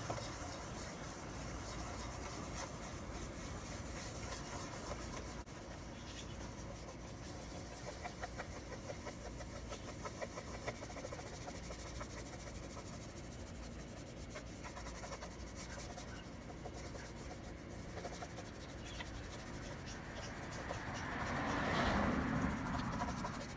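A cloth rubbing toothpaste over a plastic headlight lens, a steady scratchy rubbing. A louder swell of noise comes near the end.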